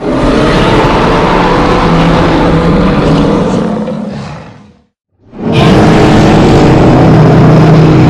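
Custom Ichthyovenator dinosaur roar sound effect, layered from slowed-down and modified animal recordings: two long, deep roars, the first fading out about four and a half seconds in and the second starting a moment later.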